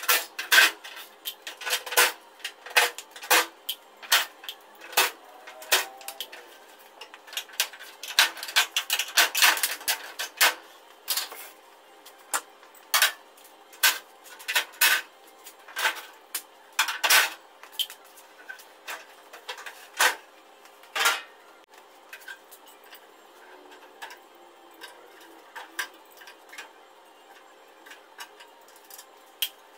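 Irregular metal clinks and knocks as a VRV air-conditioning outdoor unit is taken apart by hand with a cordless driver, with screws, tools and sheet-metal panels being handled. The knocks come in quick runs at first and thin out in the second half.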